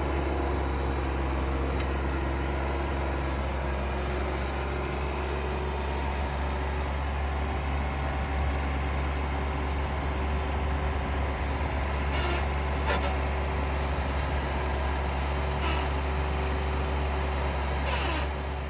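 A motor vehicle's engine running steadily with a deep rumble, and a few short clicks or knocks in the second half.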